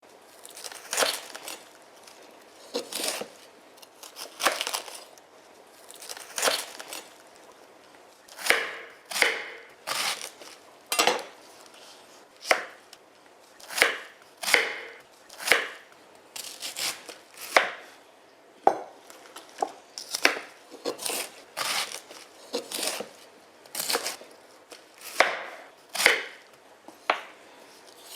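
Knife slicing through cabbage, a long series of crisp, crunching cuts coming at uneven intervals, roughly one a second.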